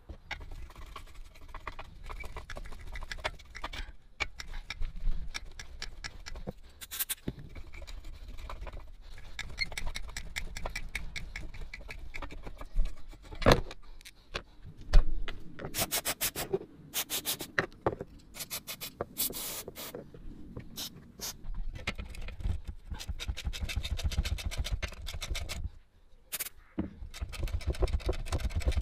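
Hand tools working on the rusty steel body of an old Sheen flame gun: irregular metal scrapes, clicks and knocks. Near the end come quick rapid clicks as a socket wrench turns a seized nut on the burner.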